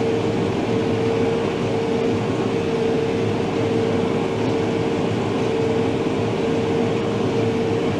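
New Holland Workmaster tractor running steadily under load while driving a square baler, a constant mechanical drone with a steady whine over it.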